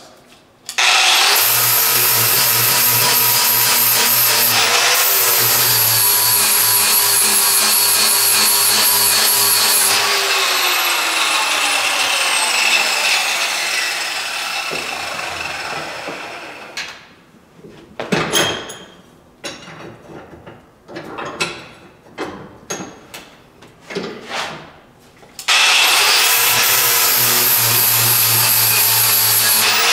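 Angle grinder with an 80-grit flap disc grinding the edge of a steel mower blade clamped in a vise. It starts about a second in and runs steadily, then is switched off about ten seconds in and winds down with a falling whine. After a stretch of irregular knocks and scrapes, it starts again near the end and grinds steadily.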